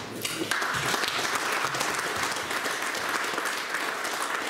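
Audience applauding: a roomful of people clapping, swelling about half a second in and then carrying on steadily.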